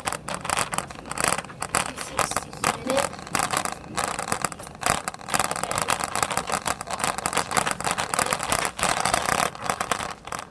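Racing game sound effects: car engines running, with dense rattling clatter and knocks throughout.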